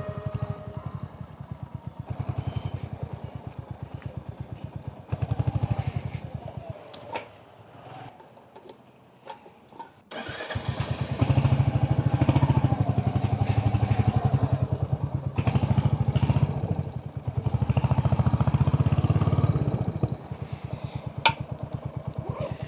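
Royal Enfield Hunter 350's single-cylinder engine running with an even thumping beat. Some seven seconds in it drops away to quiet with a few sharp clicks, then comes back louder about three seconds later and runs on.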